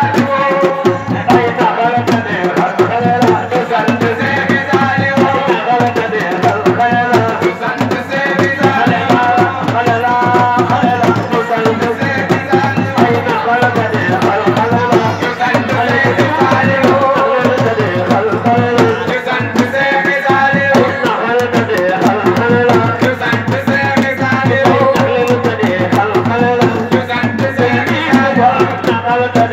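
Dance music: fast, dense hand-drum playing with a singing voice over it, steady throughout.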